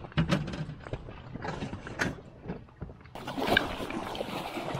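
A few knocks and clicks of gear being handled in a fishing raft. About three seconds in, a steady rush of water splashing beside the raft starts suddenly.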